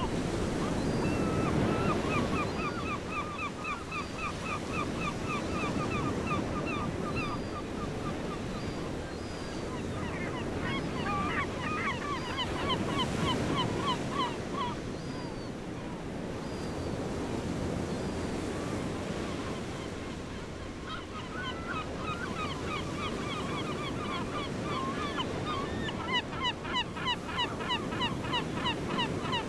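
Waves washing on a shoreline with wind noise, and birds calling in runs of rapid, repeated chirps.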